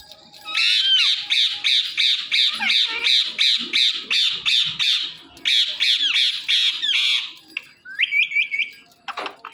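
Indian ringneck parakeet giving a long run of rapid, harsh squawks, about four a second with a short break partway through. Near the end come a few short rising chirps.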